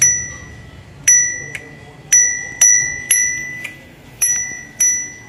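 Small handlebar bell on a child's tricycle rung over and over: about seven single dings at uneven intervals, each ringing out and fading before the next.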